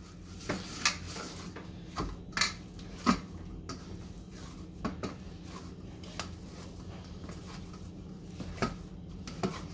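Hands kneading dough in a stainless steel bowl: irregular knocks and clinks as the metal bowl is pushed and bumps on the counter, over a steady low hum.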